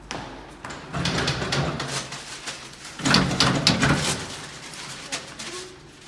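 Paper towels yanked and torn from a wall-mounted dispenser in two rough rustling, rattling bursts, about a second in and again around three seconds in.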